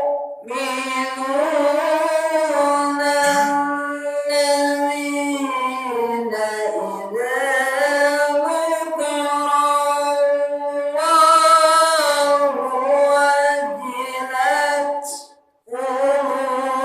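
A single high voice chanting Qur'anic recitation in the slow, ornamented melodic style (tilawah), drawing long melismatic phrases that bend up and down in pitch. It pauses briefly for breath near the end, then starts again.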